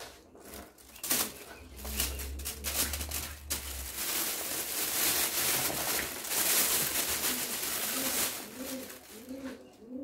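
Plastic bag rustling and crinkling as leftover shredded cabbage is shaken out of it, with a few sharp clicks as it is picked up.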